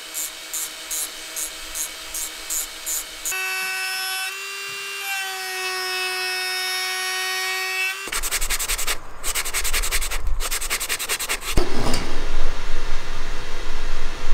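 Power tools shaping a wooden lure body. First, short scraping strokes of an angle grinder's sanding disc against the wood, about three a second. Then a steady motor whine, and from about eight seconds a handheld rotary tool grinding into the end of the blank, getting louder near the end.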